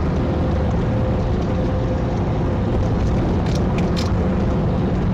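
Steady low rumble of a truck cab moving at highway speed, engine and road noise, with a faint steady hum. A few light clicks come about three and a half to four seconds in.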